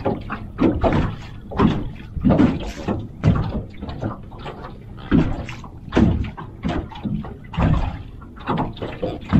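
Water slapping against the hull of a small fishing boat in repeated uneven slaps, about one to two a second.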